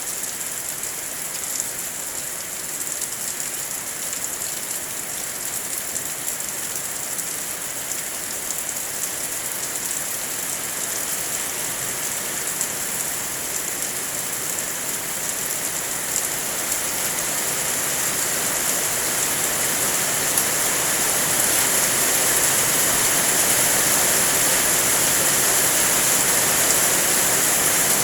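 Heavy rain falling in a steady hiss with fine drop ticks, growing heavier and louder through the middle and then holding at a downpour.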